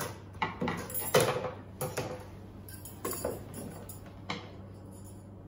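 Light clicks and clinks of plastic and metal as a Miyako SM-625 mixer's plastic body and its wire beaters are picked up and handled. The knocks come every half second or so and stop after about four seconds.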